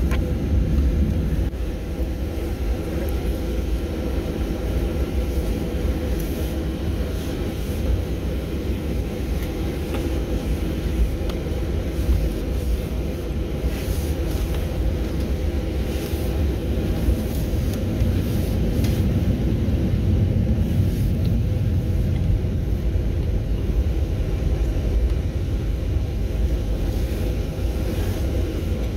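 Steady low rumble inside the cabin of a Southwest Airlines Boeing 737 as it taxis on the ground at night, engines running and wheels rolling, with a few light clicks.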